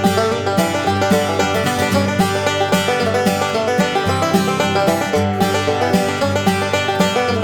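Background music: upbeat bluegrass-style tune with banjo picking and a steady beat.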